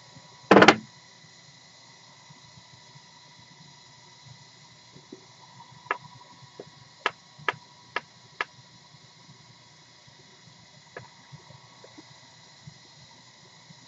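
Small objects handled on a work board: a brief loud clatter about half a second in, then a series of sharp light clicks, four of them about half a second apart in the middle and a few single ones near the end, over a steady faint hiss.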